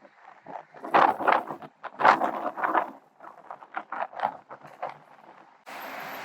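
Moluccan cockatoo giving a run of short, irregular calls, a dozen or so over about four seconds. Near the end a steady rushing noise takes over.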